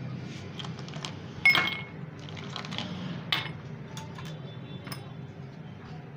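Glass and steel kitchenware clinking as a drinking glass with an ice cube and a steel mesh strainer are handled and set down. There are several sharp clinks; the loudest, about one and a half seconds in, rings briefly.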